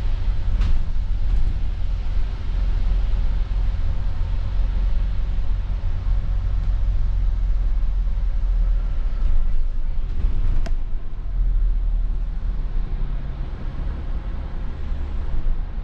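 Wrightbus StreetDeck double-decker bus on the move, its Daimler OM936 7.7-litre six-cylinder diesel running steadily under a deep rumble. Two sharp clicks cut through it, one under a second in and one about ten seconds in.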